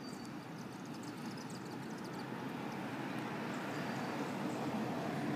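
Outdoor traffic noise: a vehicle going by, growing louder toward the end.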